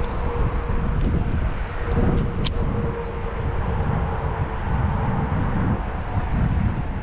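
Wind rumbling and buffeting on the microphone outdoors, with a faint steady hum underneath and one sharp click about two and a half seconds in.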